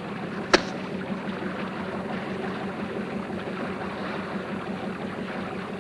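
A boat's engine running steadily as a low hum with a rapid pulse, over a wash of water noise, with a single sharp click about half a second in.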